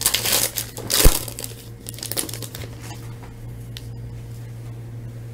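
Hands tearing open a hockey card pack's shiny wrapper and crinkling it as the cards are pulled out. The crackling is busiest in the first couple of seconds, with one sharp crackle about a second in, then fades to quieter handling over a steady low room hum.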